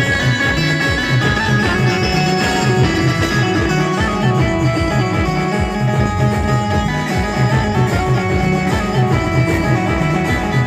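Band playing timli dance music: a fast, even drum beat under a held, repeating melody line.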